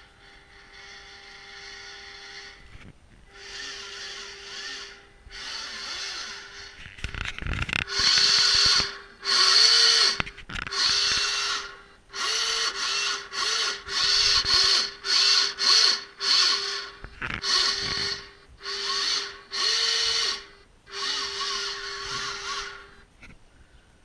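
RMG sail winch in an RC yacht hull whirring in short runs, starting and stopping over and over, each run about a second long, louder after the first few. A steady low hum carries on between the runs.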